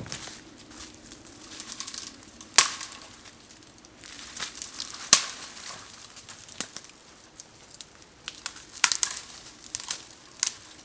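Dry dead twigs being snapped off the lower trunk of a young conifer by hand, with crackling and rustling of the branches. Two sharp, loud snaps come about two and a half and five seconds in, and a cluster of smaller snaps follows near the end.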